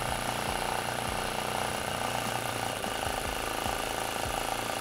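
Model flame licker (vacuum) engine running fast on a candle flame, a steady, rapid mechanical beat from its piston and inlet valve.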